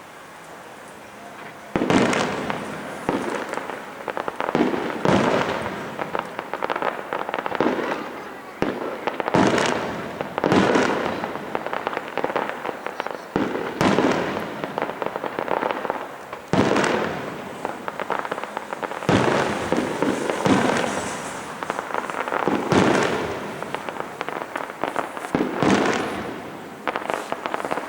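Fireworks display: aerial shells bursting one after another, a loud bang every one to two seconds, each trailing off over a second or so. The first bang comes about two seconds in.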